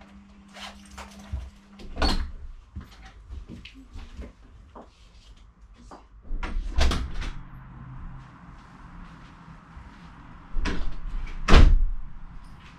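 Scattered knocks and clicks of a door and cupboard being opened and shut in a hallway. There are bigger knocks about two and seven seconds in, and a loud deep thump of a door shutting about a second before the end.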